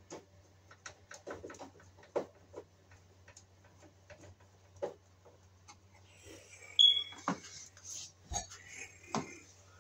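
Light clicks and knocks of the sheet-metal end piece and cover being fitted onto an electric baseboard heater, with a short, sharp high squeak about seven seconds in, then rustling and shuffling.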